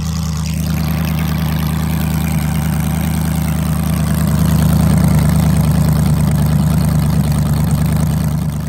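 LS V8 engine in a swapped Crown Victoria idling steadily through open exhaust stacks after a restart, now running on all eight cylinders. It gets a little louder around the middle.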